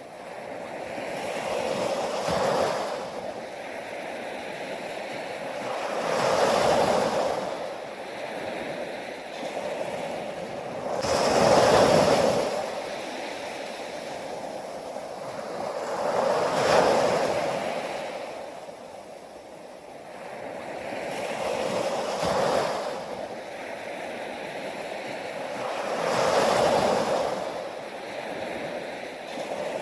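Ocean waves breaking on a shore, the wash swelling and falling away about every four to five seconds, six times in all.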